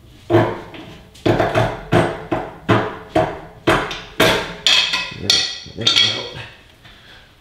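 Repeated sharp metal-on-metal knocks, about a dozen in six seconds and irregularly spaced, each with a short ring. They come as the old steering stabilizer shaft is worked free of its mount, and they stop about six seconds in.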